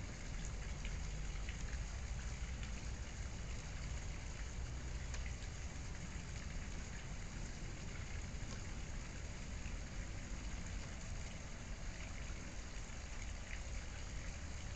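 A steady hissing background noise with a low rumble and faint scattered ticks.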